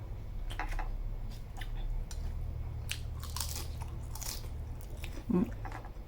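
Close-up biting, crunching and chewing of food in a person's mouth, with irregular crackly bites that are most intense around the middle. A brief hum of the voice comes near the end.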